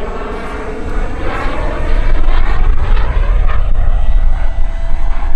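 Turbine of a BVM Renegade model jet (EvoJet 220) in flight. Its roar grows louder about two seconds in, with a faint whine that slides slightly down in pitch as it passes.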